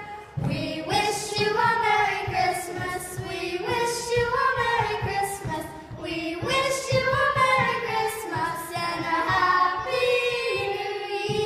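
A woman and children singing a Christmas carol together in held, melodic lines.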